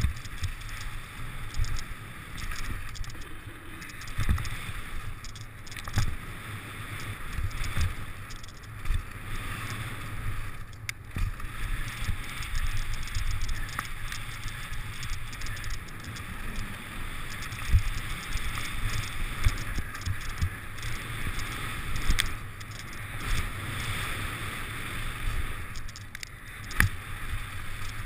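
Mountain bike riding fast downhill on a dirt and gravel trail: a steady rushing of tyres and air, with frequent low thumps and rattles as the bike hits bumps and an occasional sharp click.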